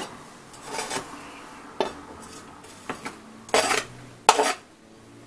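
A utensil scraping and tapping along a plastic cutting board, pushing chopped cilantro and onion off it into a glass bowl of salsa: a series of short scrapes and knocks about a second apart, the loudest two about three and a half and four seconds in.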